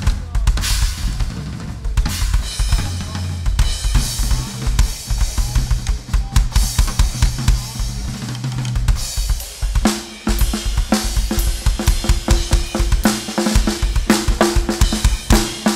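Drum kit played live as a solo: rapid, dense strokes on snare, bass drum and toms with cymbal crashes. A low pitched note sounds beneath the drumming from about ten seconds in.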